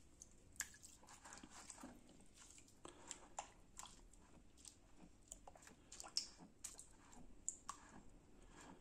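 Faint, irregular squelches and small splashes of an aquarium filter's foam sponge being squeezed and rubbed in a basin of water.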